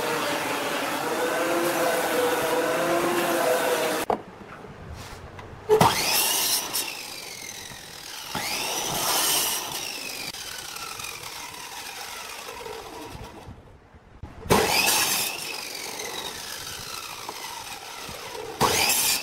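A thickness planer runs steadily, its whine wavering as a board is fed in. It cuts off about four seconds in, and a miter saw then starts up several times to crosscut a thin wooden strip. After each cut the blade's whine falls away as it winds down.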